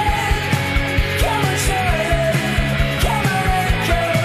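Background rock music with a fast, steady drum beat, about four beats a second, under a wavering lead melody.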